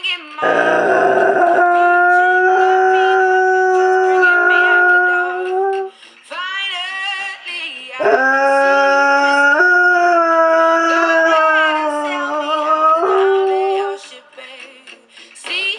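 Dog howling along to a song in two long, held howls whose pitch steps up and down, with shorter sliding cries and whines between them and a brief howl near the end.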